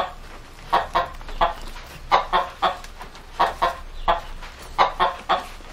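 Chickens clucking: a steady run of short clucks, often two or three close together.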